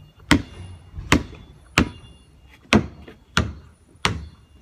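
A basketball being dribbled, bouncing six times at a steady pace of about one bounce every three-quarters of a second.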